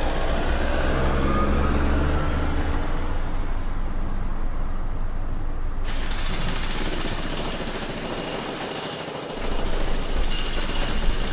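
Traffic with vehicle engines running at low pitch. About six seconds in, a jackhammer starts suddenly and hammers rapidly over the traffic.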